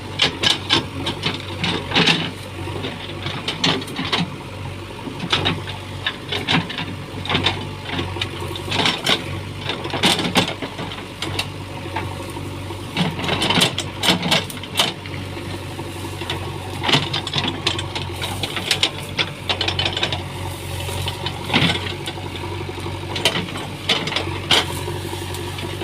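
JCB backhoe loader's diesel engine running steadily, with frequent rattling and clanking as the machine works.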